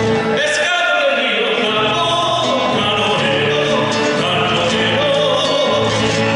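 Music with sung voices over a steady low pulse.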